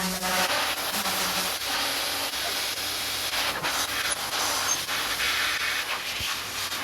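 Turbo car-drying blower running, a steady rushing hiss of strong air.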